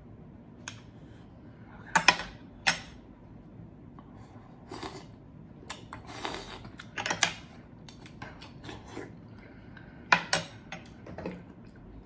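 Oyster shells and tableware clinking and clattering on a plate, in scattered sharp clinks, the loudest about two seconds in and again about ten seconds in.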